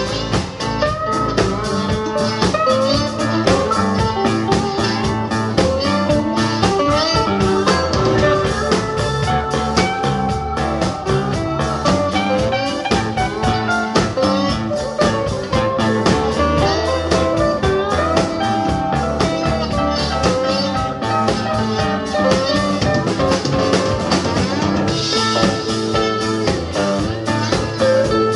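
Live band playing an instrumental blues passage with no singing. Electric guitars, bass guitar, drum kit, keyboard and saxophone are on stage, and a winding melodic lead line runs over a steady beat.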